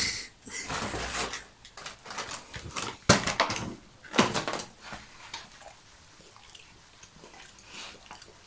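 Cardboard cereal box rustling, scraping and knocking as a black Labrador with the box stuck over its head works it off. The sharpest knocks come about three and four seconds in, and it goes much quieter after about five seconds.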